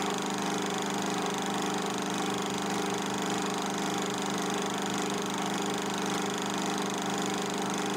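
Film projector running: a steady mechanical hum with a fast, even rattle.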